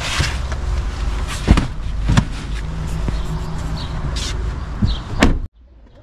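Strong wind buffeting the microphone in a steady low rumble, with several sharp knocks and clunks, the loudest about a second and a half in. The sound cuts off abruptly about five and a half seconds in.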